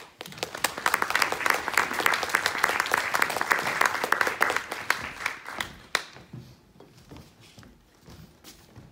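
Audience applauding: a dense run of claps that starts right away, holds for about five seconds, then fades out.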